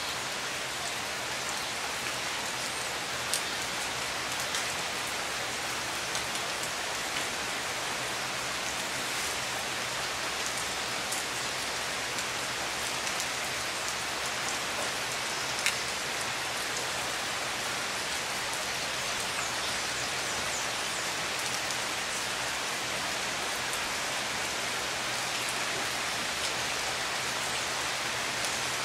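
Heavy tropical downpour: a steady, even hiss of rain falling on river water and on wooden decks and roofs, with scattered sharper drip ticks now and then.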